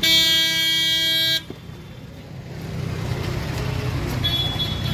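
A vehicle horn sounds once, a steady tone for about a second and a half that cuts off sharply, over a low steady engine hum.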